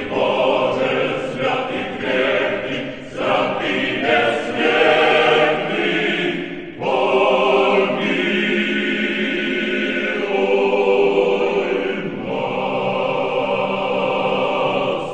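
A choir singing a slow chant in long, held phrases, with short breaks between them.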